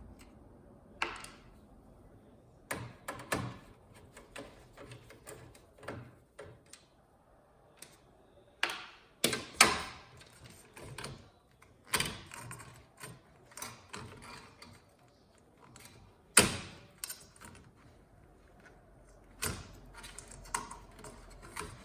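Irregular clicks, taps and clunks of screws and parts being handled inside a Sceptre flat-screen TV as the last screws come out and the power supply board is lifted free. Two knocks, about nine and a half and sixteen and a half seconds in, are the loudest.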